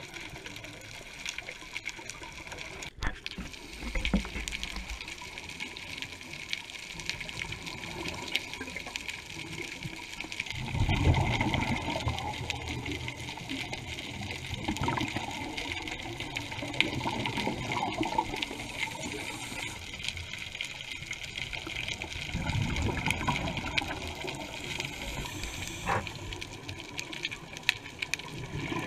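Scuba diver breathing through a regulator underwater: a steady hiss broken by loud rushing bursts of exhaled bubbles, about three times some five seconds apart.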